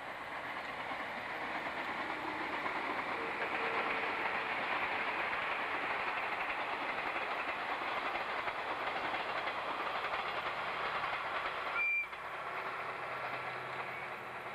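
Passing train, the running noise of wheels on rail building over the first few seconds and then holding steady. About twelve seconds in there is a brief high-pitched blip, and after it a fainter steady sound.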